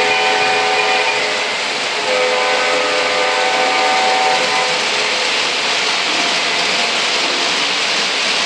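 O gauge model trains rolling on three-rail track with a steady rumble, while a model diesel locomotive's sound system blows a multi-note horn twice: a short blast at the start and a longer one from about two seconds in.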